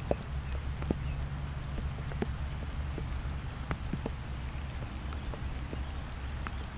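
Rain falling, with scattered drops ticking irregularly close to the microphone over a steady low rumble.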